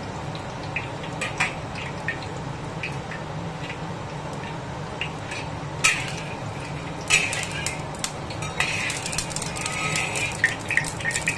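Metal wok spatula scraping and knocking against a steel wok as it spreads hot cooking oil around the pan, over a steady low hum. From a little past halfway the heating oil begins to crackle and sizzle, with a quick run of small clicks.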